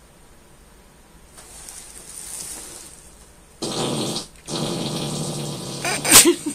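A man passing gas: a long, loud, rasping fart in two pushes, with a short break between them, ending in a sharp burst near the end.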